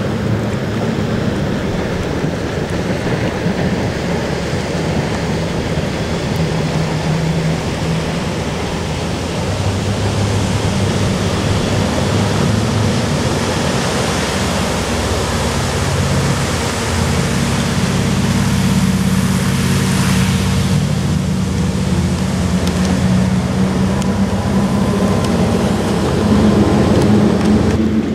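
Boat engines droning steadily over a constant rushing of water and wind; the drone shifts in pitch a couple of times.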